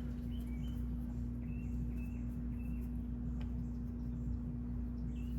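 A steady low hum with a constant drone, and faint short high chirps now and then. There is a single click about three and a half seconds in.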